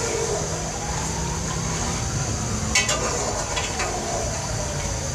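Mutton sizzling in hot oil in a steel pot as it is stirred with a metal spoon during the bhunai, the high-flame searing stage of a karahi, with a couple of clinks of spoon on pot about three seconds in. A siren slowly rises and falls in the background.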